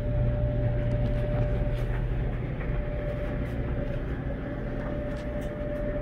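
Frigidaire Affinity clothes dryer running just after being started: steady motor hum and tumbling drum, with a constant higher-pitched tone over it.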